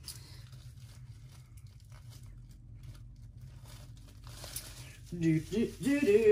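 Faint crinkling and crackling of plastic bubble wrap being unwrapped from around an item, with a person's voice briefly near the end.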